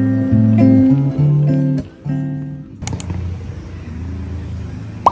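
Background music on acoustic guitar, with plucked notes, for about the first three seconds. After a couple of clicks it gives way to a steady low rumble of outdoor ambience, and a short rising squeak comes right at the end.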